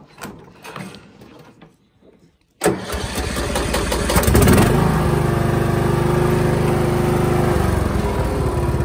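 Troy-Bilt Bronco riding lawn mower's engine starting: a few light knocks, then about two and a half seconds in it cranks briefly, catches, picks up speed and settles into a steady, loud run.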